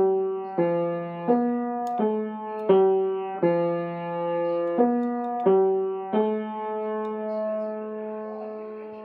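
Conn upright piano picked out one note at a time with a finger: a slow, simple tune of about nine notes struck roughly every 0.7 s, the last one held and left ringing as it fades.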